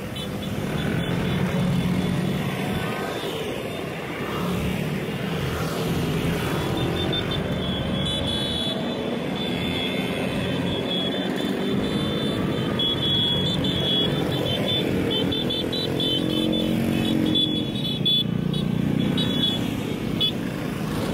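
Engines of a group of Vespa scooters running together as they ride in convoy, many engine notes overlapping and rising and falling in pitch as riders speed up and ease off.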